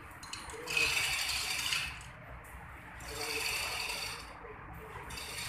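Metal clinking and rattling of tools and engine parts as an aircraft piston engine is fitted, in two spells: about a second in and again about three seconds in.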